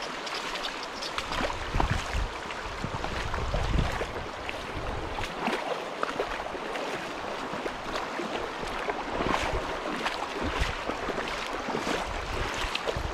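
Shallow river water rushing steadily over a riffle, with a few low rumbles of wind on the microphone.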